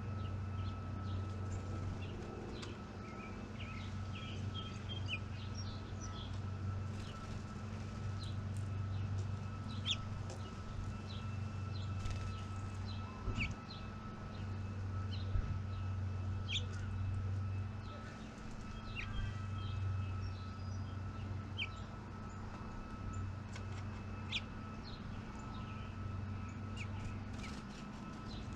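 Outdoor backyard ambience: small birds give short, scattered chirps over a steady low hum that swells and fades every few seconds.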